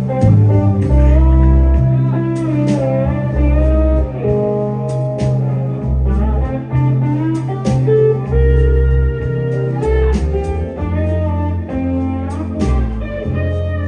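Live blues-rock band playing an instrumental break: a lead guitar solo over bass and drums, with no vocals.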